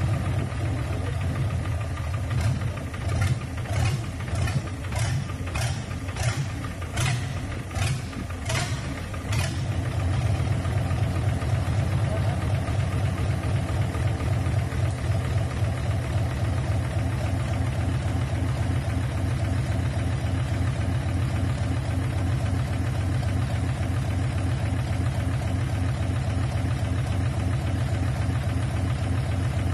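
Nissan Diesel 10PD1 V10 bus diesel engine running on a test stand, a steady low rumble. For the first nine seconds or so sharp snapping knocks come about twice a second over the engine; after that it settles into an even, steady run.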